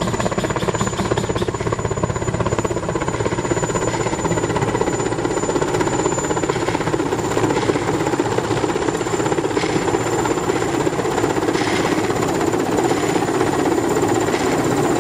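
Helicopter sound effect: rotor blades chopping rapidly and steadily over engine noise.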